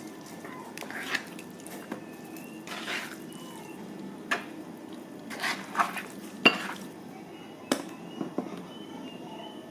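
Utensil clinking and scraping against a bowl as raw chicken pieces are stirred with their seasoning, in irregular knocks about every second.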